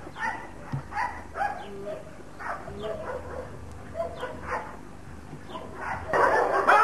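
German Shepherd barking repeatedly at a protection-training decoy, about two barks a second. About six seconds in a louder, rough noise sets in as the dog reaches the decoy and bites.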